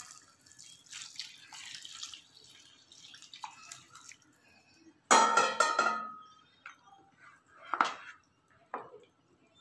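Hot water poured from a steel vessel into a pan of rice and vegetables, a soft splashing. About five seconds in there is a loud metallic clank that rings briefly, and near the end a few short knocks of a spoon against the pan.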